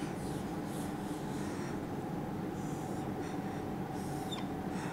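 Dry-erase marker drawn across a whiteboard in several short strokes, over a steady low hum.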